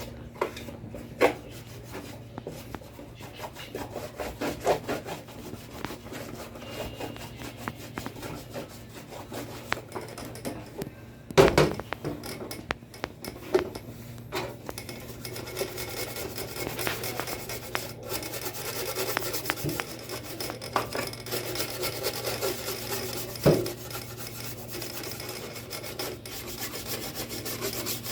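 Rubbing and scrubbing strokes over the casing of a Sony CFS-1058S radio cassette recorder as it is cleaned, going on steadily, with a few sharp knocks, the loudest about eleven seconds in.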